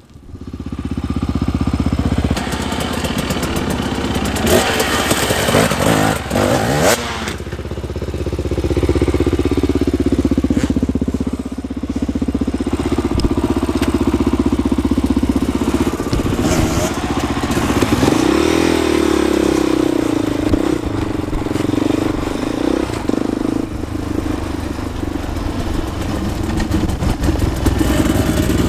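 Single-cylinder off-road engine running under load while being ridden over dirt, revving up and down with the throttle, with one clear rise and fall in pitch about two-thirds of the way in.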